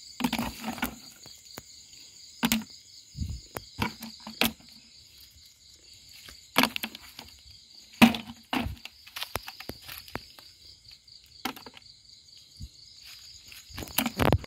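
Crickets chirring steadily, with irregular sharp clacks and knocks of snail shells being picked up and dropped into a plastic bucket, the loudest about eight seconds in and a quick cluster near the end.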